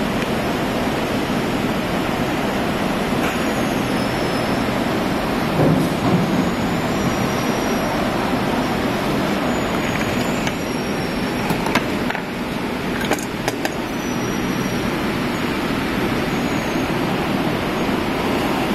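Hot air gun blowing steadily, a constant rushing of air, while it heats the solder of a surface-mount LED on an LED display module to desolder it. A few light clicks come just past the middle.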